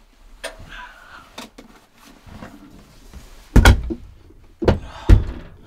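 Rustling of a sleeping bag and bedding with irregular knocks and three loud thumps in the second half, as a person climbs into the cab-over bunk of a truck camper.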